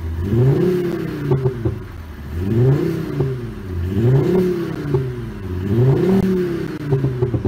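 Seat Ibiza with a sound-tuned exhaust, revved repeatedly while standing still: about four revs in a row, each climbing and then falling back.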